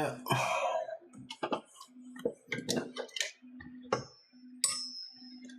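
Small parts and screws being handled on a workbench: a string of light clicks and taps, with two short metallic pings about four and five seconds in.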